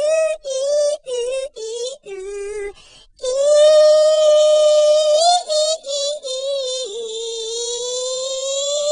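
High-pitched unaccompanied singing voice: a few short sung phrases, a brief pause, then long drawn-out notes, the last one sliding slowly upward.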